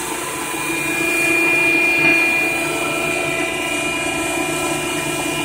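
Work air compressor running steadily: a constant mechanical drone with a steady high whine over it.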